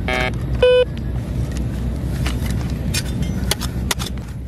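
Metal detector beeping twice in the first second over the hole, the second beep the loudest, signalling metal in the ground. Then a hand digging tool strikes and scrapes the soil and stones in the hole several times, over a steady low rumble.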